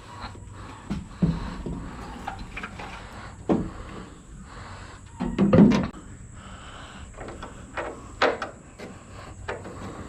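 Scattered knocks and clunks of sheet-metal truck body parts being handled and set into place while fitting a fender. The loudest clunk comes about five and a half seconds in.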